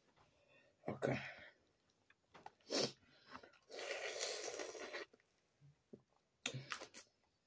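Close-up eating of boiled crawfish: a few short, wet bursts of sucking and shell-breaking, and one longer slurp lasting over a second about halfway through.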